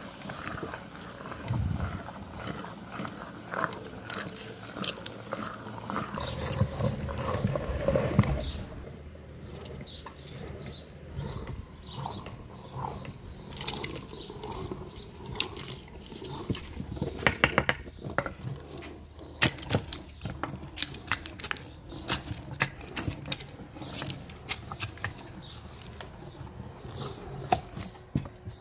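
Hand-cranked metal meat grinder crushing Kinder Joy cups and their chocolate filling: an irregular run of clicks, cracks and wet squelches as the contents are forced through.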